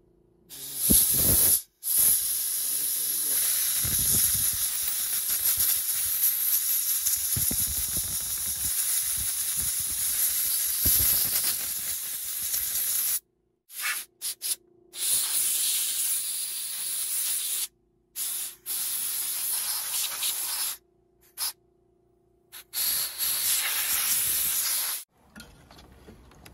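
Aerosol spray can hissing through its straw nozzle onto an electric fan's oscillator switch, flushing out water and corrosion. One long spray of about twelve seconds, then four shorter bursts of one to three seconds, each cut off sharply.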